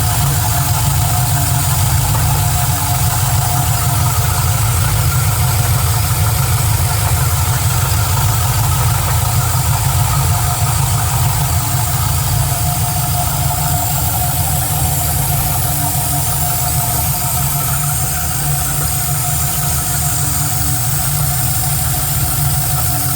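Engine idling steadily, with a noise that the owner asks about as a possible knock.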